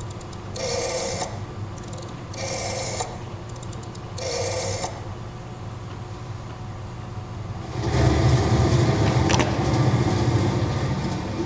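Stage telephone sound effects played over a theatre's speakers: three short buzzy tones about every two seconds, then a louder, longer noisy sound from about eight seconds in.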